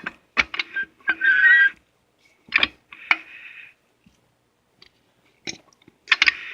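Scattered clicks and knocks of metal transmission parts being handled on the bench, with a short scrape about a second in.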